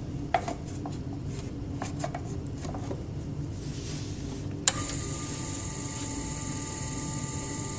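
Electric pottery wheel running with a steady low hum, with light knocks and rubbing as the unhooked bat slides about on the wheel head. A sharp click comes about two-thirds of the way through, after which a high steady whine and hiss join the hum.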